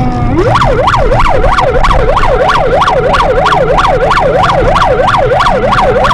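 Police car siren in fast yelp mode. It sweeps up from a low tone about a third of a second in, then swings rapidly up and down about three times a second over the rumble of a car driving fast.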